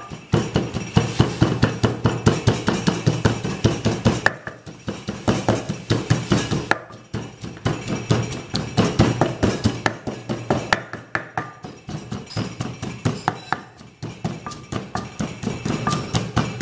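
Wooden pestle pounding fresh red chilies in an earthenware mortar: rapid dull knocks, several a second, in runs broken by short pauses, as the chilies are crushed to a paste.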